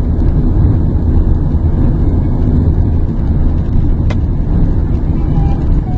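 Car on the move: a steady low rumble of engine and road noise, with a single sharp click about four seconds in.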